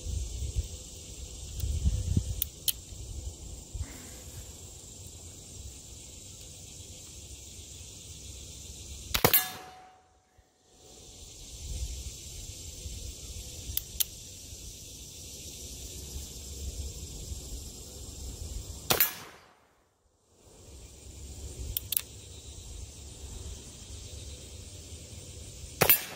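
Three shots from a Pietta reproduction LeMat black-powder revolver, spread several seconds apart, each cut off by a short gap of near silence. Faint clicks come between the shots.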